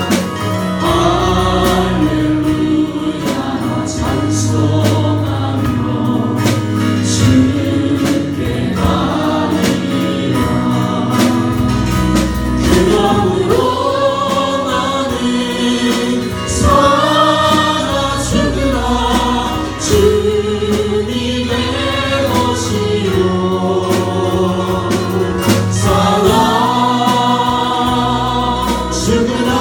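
Live gospel praise song: a group of voices singing together over instrumental accompaniment with a sustained deep bass.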